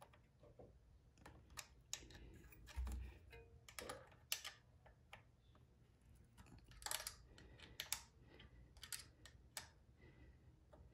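Faint, scattered small metallic clicks and ticks of a hex key working the mounting bolts of a bicycle disc brake caliper while the caliper is squeezed onto the rotor, with a brief dull bump about 3 s in.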